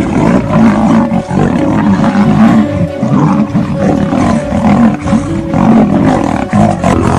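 Lion and tiger roaring over and over as they fight, loud and continuous with no pauses.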